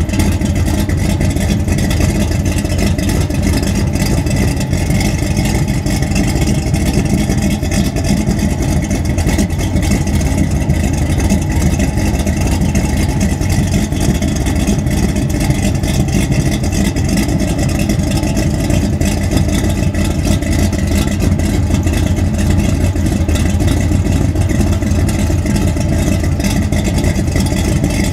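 Dual exhaust of a 1933 Chevrolet running steadily at a constant engine speed, heard close at the tailpipes.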